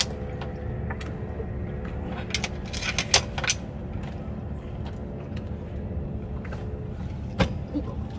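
Sharp metal clicks and taps from a wind vane self-steering gear's gear head as it is turned and worked by hand and with a tool, a cluster of them two to three and a half seconds in and another near the end, over a steady low rumble.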